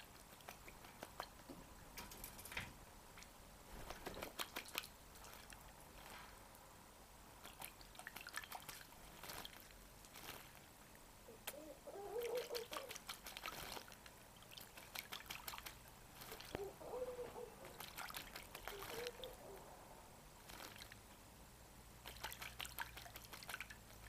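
A red-capped parrot bathing in a shallow bird bath, splashing the water with its wings in short bursts every few seconds.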